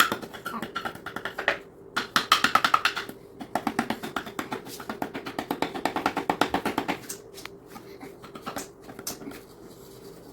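Small toy hammer tapping rapidly on a digging tool set against a plaster excavation block, chipping it away to free the dinosaur bones. The taps come in quick runs with short breaks, then thin out to a few scattered taps about seven seconds in.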